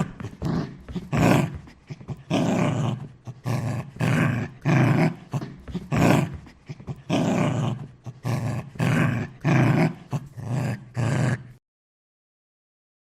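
A dog barking again and again, about two barks a second, stopping shortly before the end.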